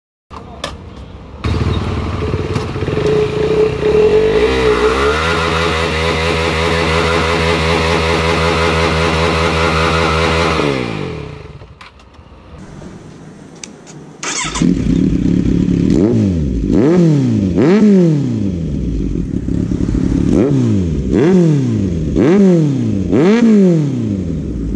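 KTM Duke 390's single-cylinder engine held at high revs through a burnout, the rear tyre spinning, for about ten seconds before it drops off. After a short lull, a Kawasaki Z900's inline-four with an aftermarket slip-on exhaust is revved again and again, about once a second, each rev climbing and falling back.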